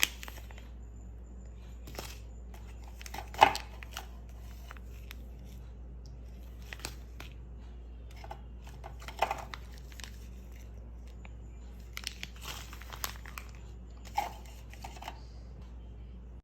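Scattered small knocks, clicks and rustling of things being handled, with a few louder knocks about three and a half, nine and fourteen seconds in, over a steady low hum.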